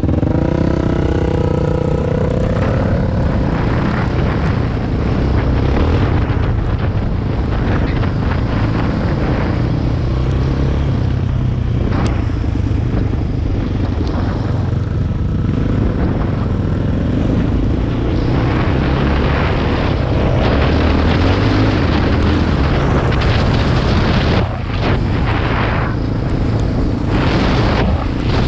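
Quad bike (ATV) engine running steadily as it is ridden along, with a constant rush of noise and scattered ticks over it.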